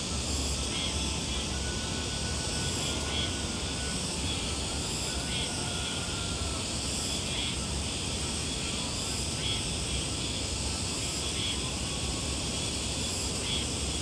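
Summer outdoor ambience: insects keep up a steady, high-pitched drone, short calls repeat every second or two, and faint thin whistles come and go, all over a constant low rumble.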